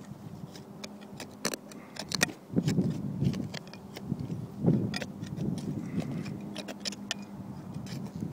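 Hand trowel digging into rocky soil and turf: gritty scrapes and crunches of earth, with sharp clicks as the metal blade strikes stones.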